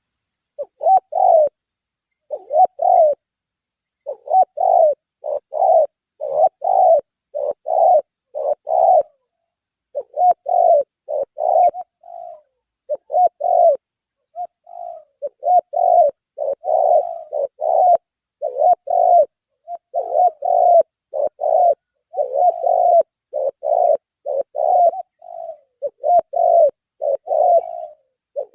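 Spotted dove (tekukur) cooing over and over: a long run of short coos, one after another, broken by brief pauses.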